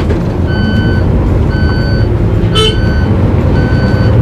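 Vehicle warning beeper sounding short steady beeps about once a second, like a reversing alarm, over the low rumble of an airport apron bus.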